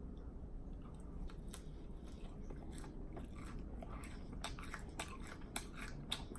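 A person chewing food close to the microphone with open-mouthed smacking: wet clicks and lip smacks, sparse at first and coming thick and fast from about halfway through.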